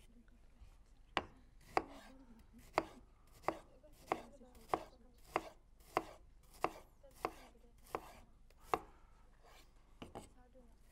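Kitchen knife slicing through Korean pear onto a wooden cutting board. It strikes in a steady rhythm of about one and a half sharp knocks a second, a dozen or so in all, with a short pause and a couple of lighter cuts near the end.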